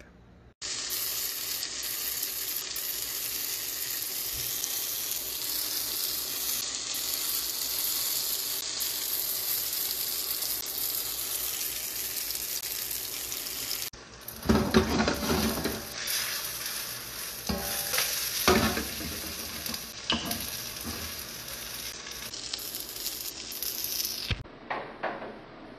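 Scallions and onions frying in oil in a nonstick pan for panjeon (Korean scallion pancake), a steady sizzling hiss. From about halfway on, irregular scraping and knocking of stirring and pan handling sound over the sizzle.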